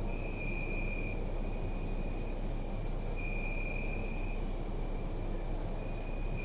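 Crickets trilling steadily at one high pitch, the trill swelling louder for about a second every three seconds, over a steady low background rumble.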